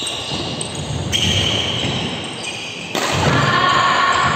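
Badminton rally in an echoing sports hall: racket hits on the shuttlecock and players' footfalls on the court. Over them run sustained high tones that shift abruptly every second or two, with a sharp jump in loudness about three seconds in.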